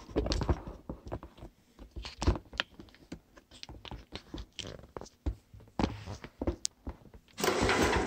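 Handling noise from repositioning the camera on its flexible gooseneck mount over a workbench: scattered small clicks and knocks, then a denser scraping rustle for about half a second near the end.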